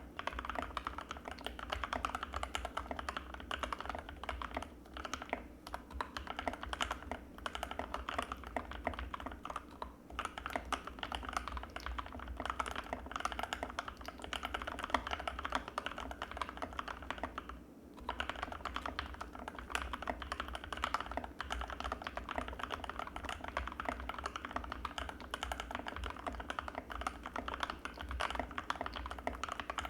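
Continuous fast typing on an Anne Pro 2 mechanical keyboard with Gateron Red linear switches, a dense stream of key clicks with a brief pause about two thirds of the way through.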